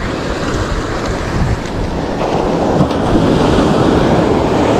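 Waves breaking and washing up on a sandy beach, under steady wind buffeting the microphone.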